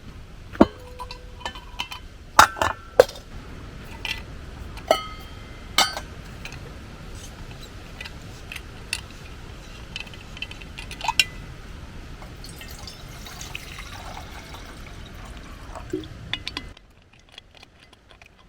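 Tea being made at camp: a cup and utensils clinking, several strikes ringing briefly, with liquid being poured. The clinks are loudest in the first few seconds, then lighter taps follow.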